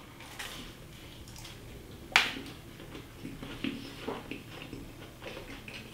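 A person chewing a mouthful of flaky-pastry sausage roll: faint mouth and eating sounds, with one sharp click about two seconds in and a few small ticks after it.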